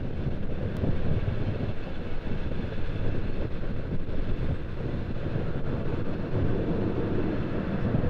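Low, steady rumble of a Boeing 787-8 Dreamliner's jet engines at taxi power, mixed with wind buffeting the microphone.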